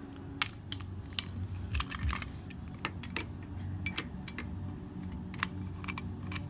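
Small hard plastic toys being handled, clicking and tapping against each other in irregular sharp clicks over a low hum.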